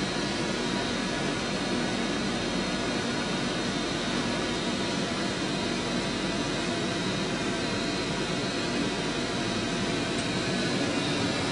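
Steady rush of a vehicle's heater blower running inside the cab, with a faint hum underneath.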